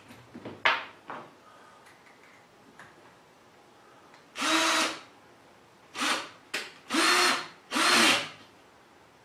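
Cordless drill driving screws into wooden framing, in four or five short bursts of motor whine in the second half, each rising and falling in pitch. A couple of sharp knocks come about a second in.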